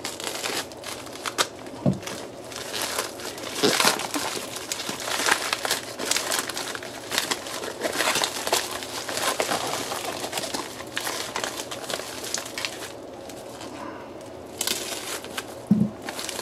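Plastic courier mailer bag being slit with a folding knife and pulled open by hand. The film crinkles and rustles irregularly, going quieter for a moment near the end.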